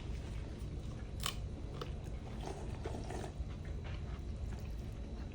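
People chewing and eating chicken curry noodles, with scattered light clicks, the sharpest about a second in, over a low steady hum.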